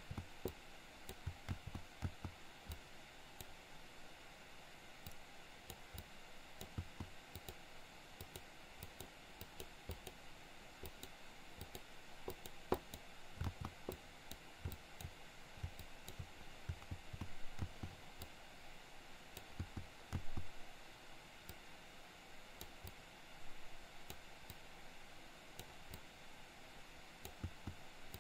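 Faint, irregular clicking of a computer mouse and keyboard over a steady hiss.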